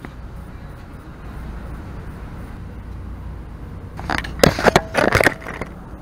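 A steady low rumble, then a cluster of loud knocks and rattles about four seconds in, from the camera being handled.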